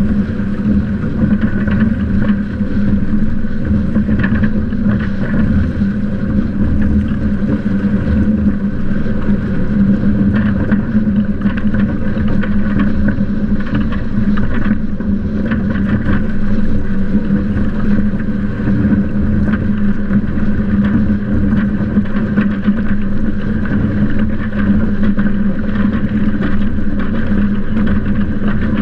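Windrider Rave hydrofoil trimaran sailing fast: a steady rush of water and wind over the boat, with a steady low hum underneath, heard close up from a camera on the boat's crossbeam.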